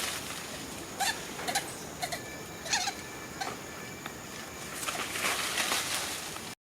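Monkeys giving short squeaky calls, half a dozen or so spaced irregularly, over a steady outdoor hiss and light rustling; the sound cuts off suddenly near the end.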